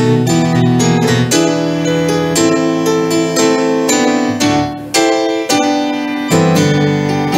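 Electronic keyboard with a piano voice playing hymn accompaniment without singing, a new chord struck about every second, with a short dip in the playing just before five seconds in.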